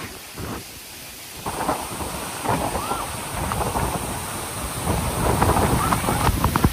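Waterfall rushing, an even roar of falling water, with people's voices faintly mixed in from the pool. It starts quieter and fills out about a second and a half in.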